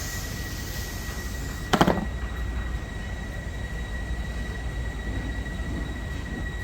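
Steady low machine rumble with a faint steady high whine, and one short metallic clank about two seconds in.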